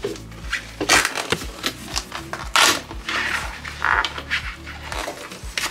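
A blade scraping and cutting old vinyl helm covering around a steering-wheel hub, in a string of short scrapes and clicks, the loudest about one, two and a half and four seconds in. Background music with a steady beat runs underneath.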